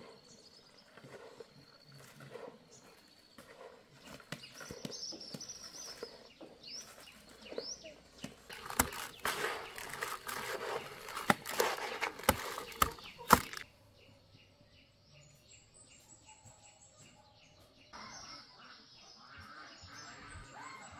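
Hands stirring and scooping dry puffed rice in a plastic basin: a crisp rustling with sharp clicks, loudest for about five seconds in the middle. Faint bird chirps around it.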